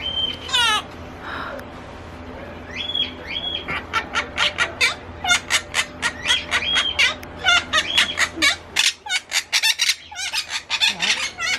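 Monk parakeets squawking and chattering: a run of harsh, rapid calls, thickest from about four to nine seconds in, mixed with a few longer calls held on one pitch.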